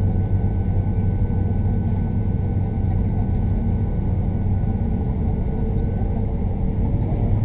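Cabin noise of an Airbus A340-600 taxiing, its four Rolls-Royce Trent 500 engines running at taxi power: a steady low rumble and hum, with a faint thin whine that stops about six seconds in.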